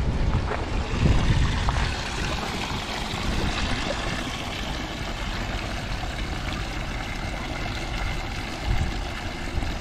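Wind buffeting the microphone, with a gusty low rumble that is strongest in the first couple of seconds, over a steady outdoor rushing noise.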